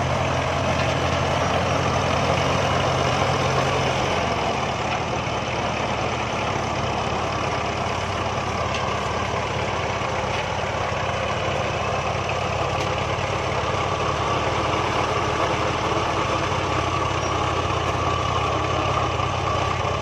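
Shibaura SD2200 farm tractor's diesel engine running steadily as the tractor drives along on steel cage wheels.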